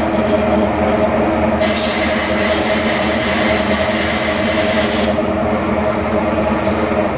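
Mazak manual lathe running, a steady machine hum made of several held tones. A loud hiss joins it from about a second and a half in until about five seconds. The whole sound drops away abruptly at the end.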